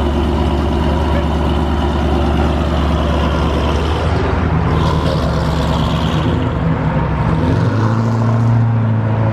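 Dodge Challenger's engine running with a deep, steady low note as the car pulls out and rolls away. About three-quarters of the way through, the engine note steps up to a higher, steady pitch as it picks up speed.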